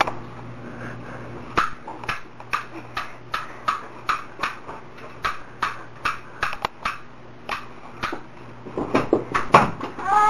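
A run of short, sharp clinks or knocks, about three a second, over a faint steady hum.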